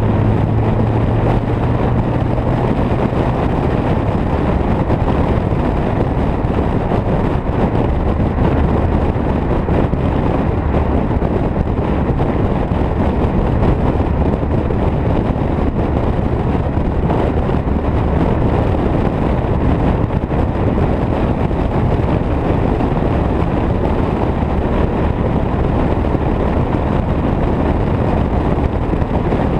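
Classic Mini with a 1380cc A-series engine cruising on the road, its low engine drone mixed with steady wind rush over the outside-mounted microphone and tyre noise. The drone drops a little in pitch a few seconds in, then holds steady.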